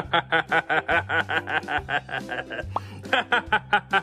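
Rapid, continuous 'ha-ha-ha' laughter, about eight pulses a second, breaking off briefly near three seconds and then resuming, over a background music track.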